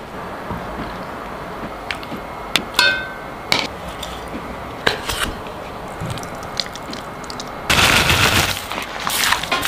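Utensils and food clicking and clinking against an enamelled pot as the dish is assembled, several separate sharp taps, one with a short ring. About eight seconds in comes a louder noisy burst lasting about a second as sauce is squeezed from a pouch.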